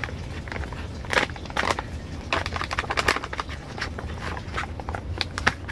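A brown kraft-paper pouch crinkling and rustling as it is handled and opened: irregular short crackles throughout, over a steady low hum.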